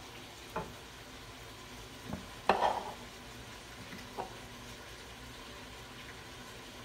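A freshly poured, carbonated fruit gose fizzing faintly in the glass. A few brief sounds break in, the loudest about two and a half seconds in.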